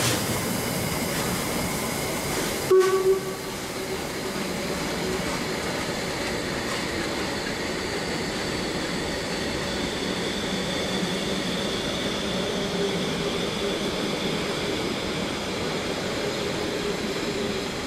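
Coaches of a Harz narrow-gauge steam train rolling past with a steady rumble of wheels on rail. About three seconds in, a short, loud pitched toot in two quick pulses stands out above the rolling noise.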